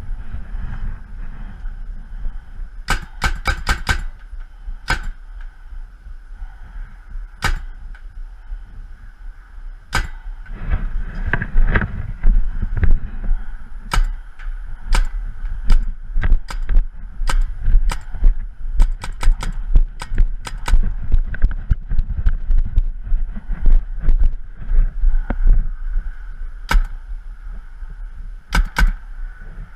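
Paintball markers firing: sharp pops, some single and some in quick strings of three or four, coming thickest in the middle. A low rumble runs underneath.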